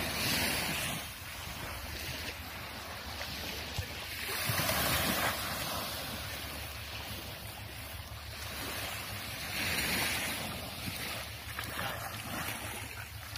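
Small waves washing up on a sandy beach, the surf swelling about every five seconds, with wind rumbling on the microphone.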